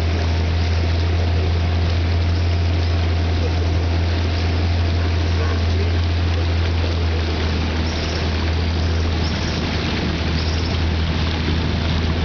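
Boat motor running at a steady, even pitch while the boat moves along, with a rushing wash of water and air noise under it.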